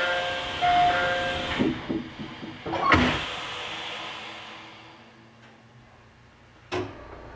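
Doors of a 313 series commuter train closing at a station. A short two-note chime sounds twice over a hiss of air. The doors shut with a knock about three seconds in, and the air hiss fades away. Another knock comes near the end.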